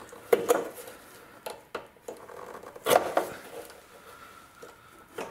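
A few short scrapes and knocks from hand work on a rusty exhaust hanger bracket under a car, with quieter stretches between them; the longest one comes just before the middle.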